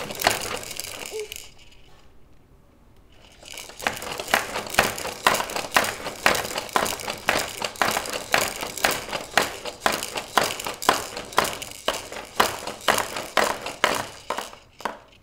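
Plastic baby activity center rattling and clicking as a baby bounces in it and slaps at its toys. There is a steady run of sharp clacks, about three a second, after a brief quieter spell near the start.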